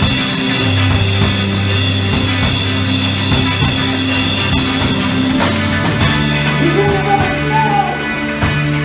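Live rock band playing: drum kit hits over sustained held chords and a low bass note that steps up to a higher note about halfway through.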